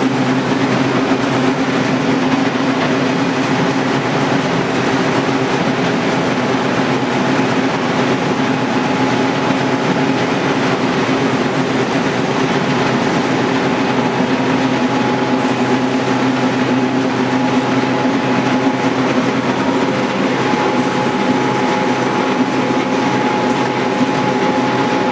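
LK120 cold screw oil press running steadily while pressing seeds: a continuous mechanical hum and clatter from its motor and pressing screw, with a thin steady whine that grows clearer about halfway through.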